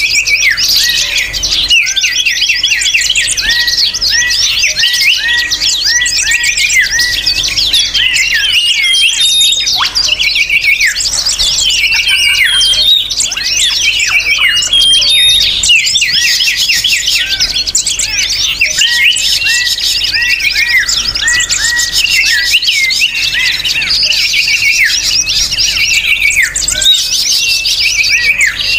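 Dense, noisy chorus of many small songbirds chirping and twittering over one another without a break, a bird-lure call recording. Rows of short, quickly repeated chirps sit under a busy, high twitter.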